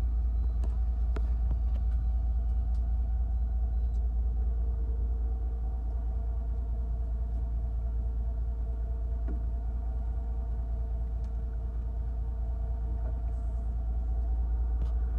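Fishing boat's engine running: a steady low rumble with a faint hum over it, and a few small clicks.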